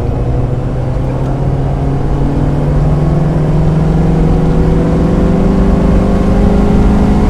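1995 Mazda Miata's 1.8-litre four-cylinder engine pulling hard through a gear, its pitch climbing steadily for several seconds as the revs rise, over a low rumble.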